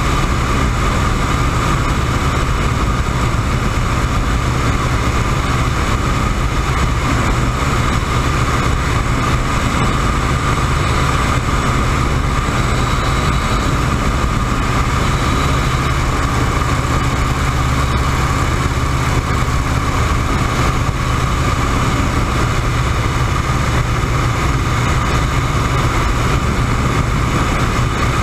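WACO YMF-5 biplane's Jacobs seven-cylinder radial engine and propeller running steadily in level flight, heard from the open cockpit with wind rushing past the microphone.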